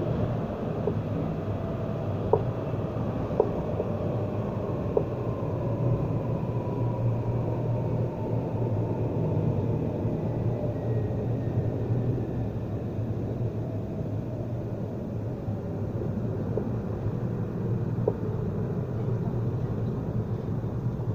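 Inside a Nottingham Express Transit Alstom Citadis tram on the move: a steady low rumble of wheels on rail, with a motor whine that falls slowly in pitch over the first half. A few short sharp knocks come through, three in the first few seconds and one near the end.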